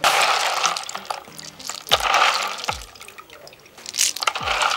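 Hands swishing and scooping freshwater snails (ghonghi) in a plastic basin of water to wash them: sloshing and splashing in three spells, at the start, about two seconds in and near the end.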